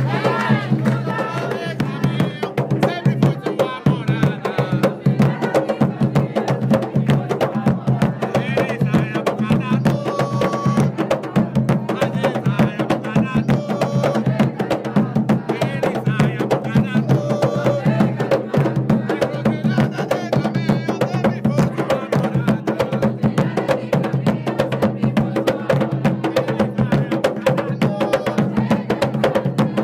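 Skin-headed hand drums beaten in a fast, steady rhythm, with voices singing over them.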